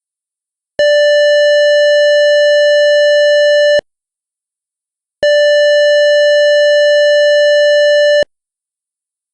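Synthesized electronic siren tone standing for the HPSS sirens' single blast: a steady, buzzy single-pitch note sounded twice, about three seconds each with a short gap, switching on and off abruptly with no wind-up or wind-down.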